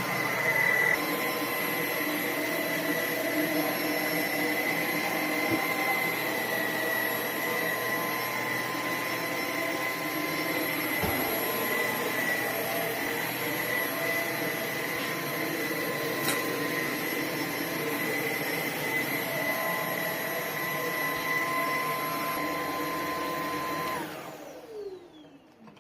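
Roborock H60 Ultra cordless stick vacuum running steadily with a high motor whine, then switched off about two seconds before the end, its motor winding down with a falling pitch.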